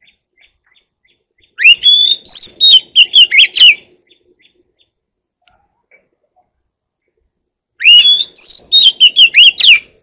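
Oriental magpie-robin singing two loud phrases of quick, varied whistled notes that rise and fall, each about two seconds long: the first starts about a second and a half in, the second near the end.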